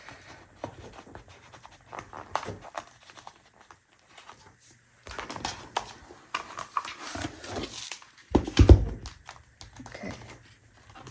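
Paper and planner pages being handled: rustling and crinkling with scattered small taps and clicks, and one loud dull thump about eight and a half seconds in.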